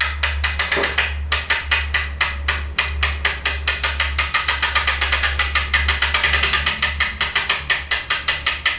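Ratchet on a bow-tillering board clicking rapidly and evenly, about seven clicks a second, as it is cranked to pull a PVC bow's string down toward full draw.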